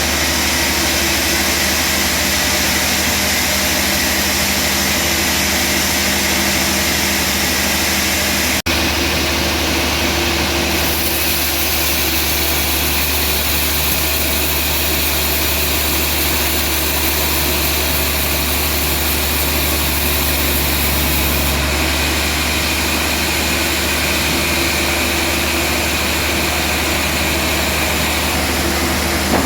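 Sawmill engine and saw running steadily with a constant drone, broken by a brief dropout about a third of the way in.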